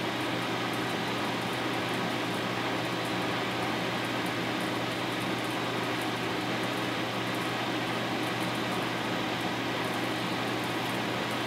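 Steady fan-like hum and hiss of room tone, with a few low, even tones and no distinct clicks or knocks.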